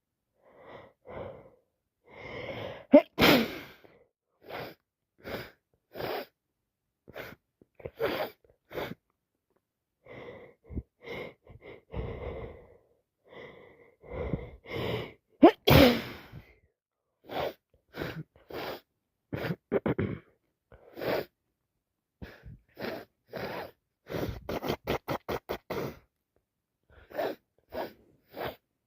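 A woman with a heavy cold sneezing: two hard sneezes, about three seconds in and again about halfway, with many short sniffs and gasping breaths between them and a quick run of sniffles near the end.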